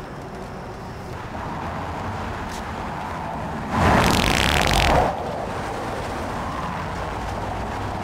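Steady street traffic noise, with a sudden loud noise lasting just over a second about four seconds in.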